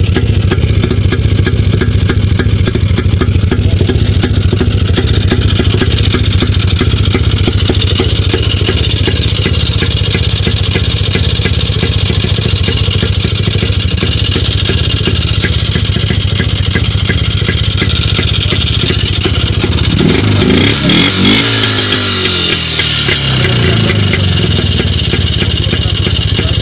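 IZh Planeta 5 motorcycle's single-cylinder two-stroke engine running at low revs with a fast, steady knock, which the owner puts down to a badly worn piston pin. About twenty seconds in the revs rise briefly and drop back to idle.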